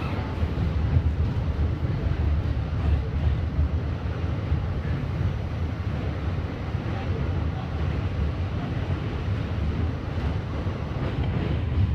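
New York subway train running across the bridge, heard from inside the car: a steady low rumble of wheels on track.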